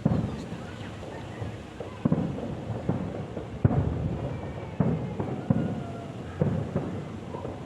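Fireworks display: a run of aerial shells bursting, with sudden booms roughly every second or so and rumbling echoes between them.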